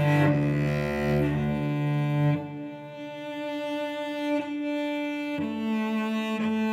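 Solo cello bowed in long held notes. About two seconds in, the low notes drop away and it goes softer on a single higher held note, and a lower note joins it again near the end.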